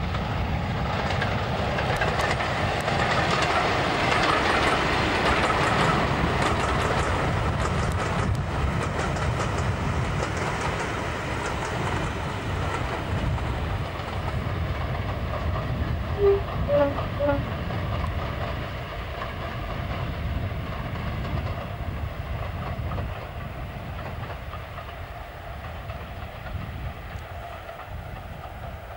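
Class 52 'Western' diesel-hydraulic locomotive D1013 'Western Ranger', with its twin Maybach engines, working past with a train of coaches, its engine note mixed with wheels clattering over the rail joints. It is loudest in the first half and fades steadily as the train draws away. A few short pitched blips sound about halfway through.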